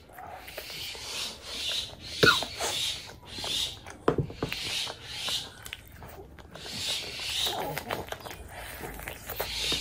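Close-miked chewing and wet mouth sounds of a person eating, one chew about every half second, with small clicks and smacks between.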